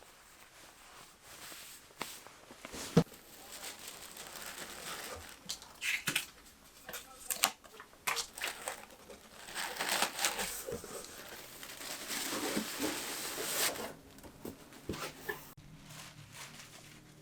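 Crinkling and rustling of handled material, broken by scattered sharp clicks and knocks. The rustling is loudest from about ten to fourteen seconds in.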